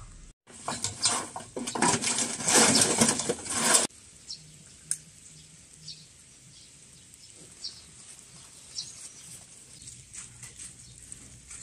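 Rustling and crackling as a brick wok stove's firebox is stoked, stopping suddenly about four seconds in; then a quiet stretch with faint scattered ticks.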